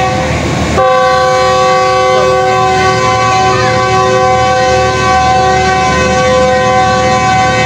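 Train horn sounding a multi-tone chord: a blast that breaks off just after the start, then one long steady blast from about a second in that stops near the end, over a low rumble.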